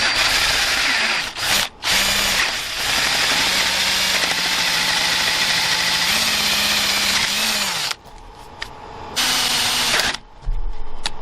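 Handheld power drill boring out a broken hinge screw in a door through a metal guide plate, its motor running steadily for about eight seconds with a short stop near the start, then two brief bursts of drilling near the end.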